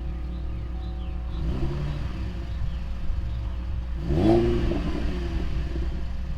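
2010 Chevrolet Camaro's V6 engine idling through its exhaust, blipped into a short rev about a second and a half in and a bigger, sharper rev about four seconds in, each falling straight back to idle.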